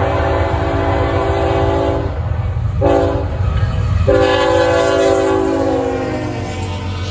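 Multi-chime locomotive air horn sounding a chord: a long blast that ends about two seconds in, a short blast, then a long blast that drops slightly in pitch and fades, over the low rumble of the moving train.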